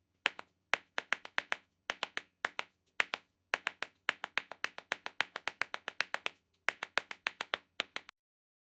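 Tap dancing: the metal taps on the shoes strike a hard floor in quick rhythmic runs of sharp clicks with short pauses between phrases. The clicks stop a little before the end.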